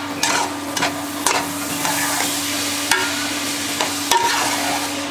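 Metal spoon stirring and scraping cooked sweetened rice around a large aluminium pot, with several sharper scrapes of the spoon against the pot over a steady sizzling hiss.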